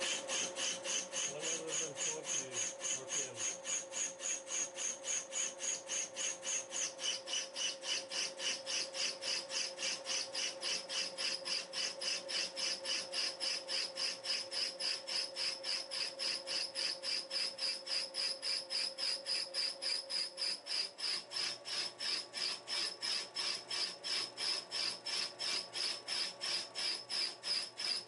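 Wohlhaupter UPA 5 boring and facing head turning in a milling machine, its single-point tool facing the round surface of a cross slide. A rhythmic rasping cut pulses about three or four times a second over a steady high ring, which drops a little in pitch a few seconds in.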